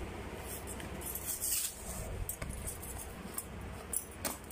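Cardboard box being lifted, turned and opened by hand: a burst of rustling about a second in, small clicks of handling, and one sharp click near the end.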